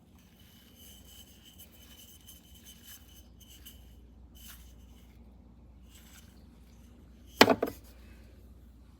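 Faint rubbing and handling noises, then a brief loud clatter with a quick double hit about seven and a half seconds in.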